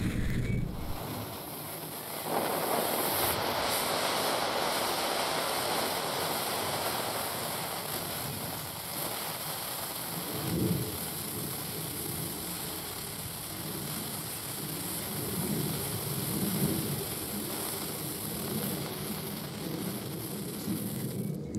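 Cialfir 'Perro Cagón' pooping-dog novelty firework burning with a steady hiss as it pushes out its black ash snake; the hiss grows louder about two seconds in.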